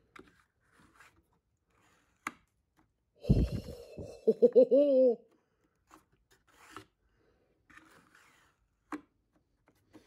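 Hard 3D-printed plastic connector being handled and fitted into a routed hole in plywood: light clicks, and a knock about three seconds in. Right after the knock comes a brief wordless vocal sound whose pitch wavers up and down.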